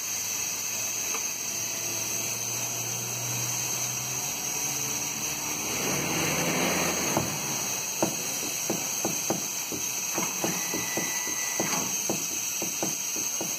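Steam shrink tunnel hissing steadily from its steam generator, with a low hum through the first half. A louder rush of steam comes about six seconds in, then irregular light clicks, two or three a second.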